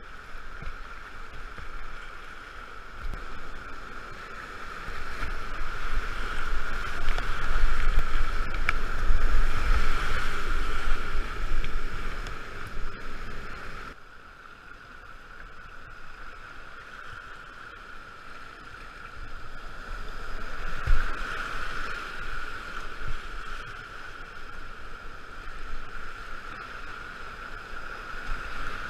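Whitewater rapids rushing and splashing around a plastic whitewater kayak, with water slapping the hull and paddle strokes, heard from a camera mounted on the boat. It is loudest through the first big rapid, drops suddenly about halfway, then builds again as the boat enters more whitewater.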